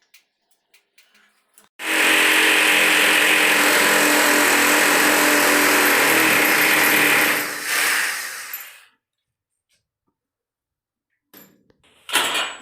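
Electric drill boring a hole into the wall for the heater's mounting: it runs steadily for about five seconds, then slows and stops, and a second short burst of drilling comes near the end.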